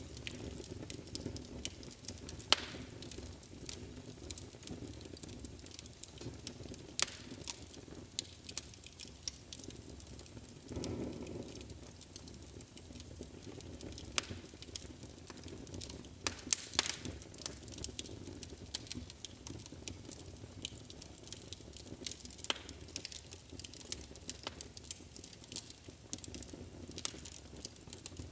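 Wood fire burning in a fireplace: a steady low rumble of flames with sharp crackles and pops scattered irregularly, and a brief louder whoosh of flame about eleven seconds in.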